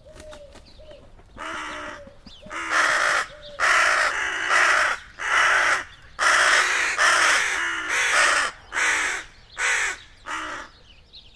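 Crow giving a run of about a dozen loud, harsh caws in quick succession, spaced more widely near the end. These are alarm calls at a hunting cat.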